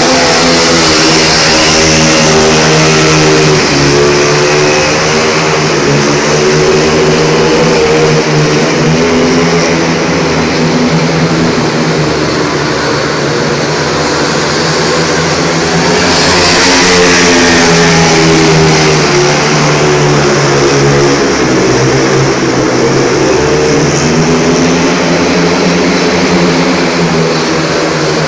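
Speedway motorcycles' 500 cc single-cylinder methanol engines running laps on the track, their loud engine note rising and falling in pitch again and again as they go round.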